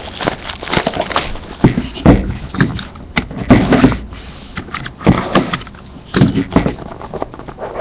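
Irregular crinkling, scraping and knocking of a sealed trading-card box being unwrapped and opened by hand.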